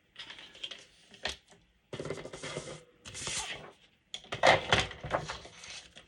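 Sheets of cardstock being handled and positioned for cutting: rustling and sliding paper in several short bursts with small clicks and knocks, the loudest about four and a half seconds in.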